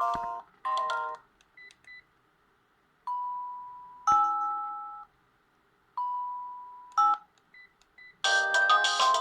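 Sharp GX17 mobile phone playing its ringtones through its small speaker. A many-note polyphonic melody stops about a second in, followed by a few faint short beeps. A simple alert then sounds twice: a held tone that steps up into a two-note chime and fades. After a few more short beeps, a new polyphonic melody begins near the end.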